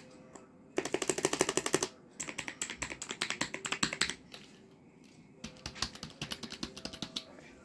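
Computer keyboard typing: three runs of rapid keystrokes, the first short run the loudest, with brief pauses between them.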